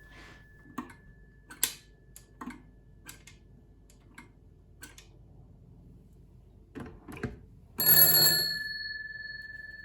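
Light mechanical clicks from a 1920s BTMC desk telephone, then two louder clicks about seven seconds in, followed by a single stroke of the telephone's bell that rings on and fades slowly.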